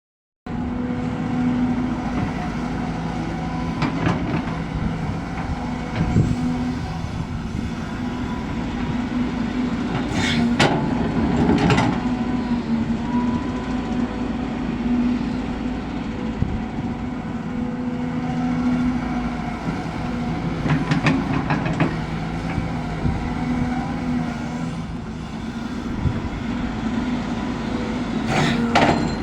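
Excavator's diesel engine running steadily, with several sharp clanks over its drone.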